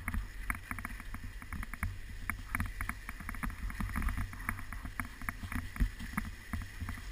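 Skis running over lumpy, crusted snow, with many quick irregular clicks and scrapes and a steady low rumble of wind on the head-mounted camera's microphone.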